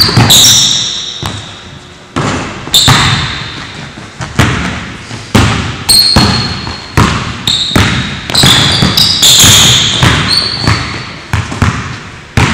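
A basketball being dribbled on a hardwood gym floor, with sharp bounces at an uneven pace that echo in the large hall. Short high squeaks of basketball sneakers on the court come between the bounces.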